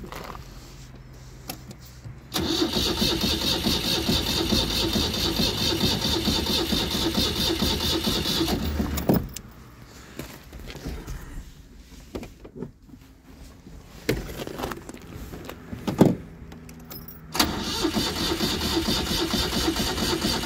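Citroën 2CV's starter motor cranking its air-cooled flat-twin engine, which does not catch: one run of cranking for about six and a half seconds, a pause broken by a few sharp clicks, then cranking again near the end. It is a long-dead engine being brought back to life.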